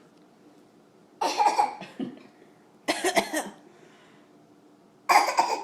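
A 16-month-old toddler laughing in three short, breathy bursts.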